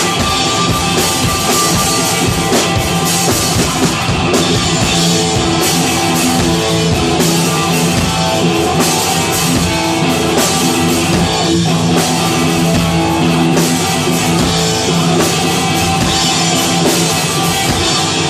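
A rock band playing live: drum kit and electric guitars in an instrumental section, loud and continuous.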